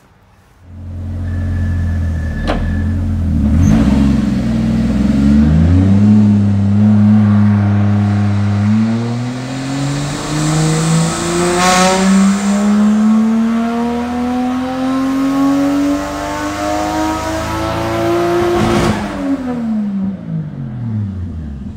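Car engine running, rising in pitch once about five seconds in, then climbing steadily in pitch for about ten seconds as the car accelerates, and falling away quickly near the end.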